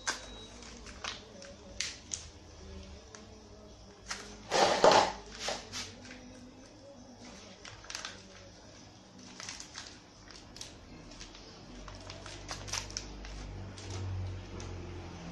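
Small steel engine bearing shells clicking and clinking as they are handled and laid down on a tiled floor. There are scattered light clicks, with one longer, louder crinkling clatter about four and a half seconds in.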